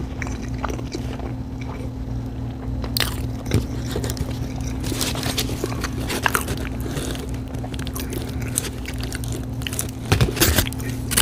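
A person chewing and biting food close to the microphone: irregular wet mouth clicks and crunches, busiest near the end, over a steady low hum.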